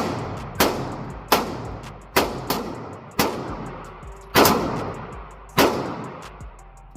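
Firearm shots fired in a string, about eight at an uneven pace, each followed by a long echoing decay.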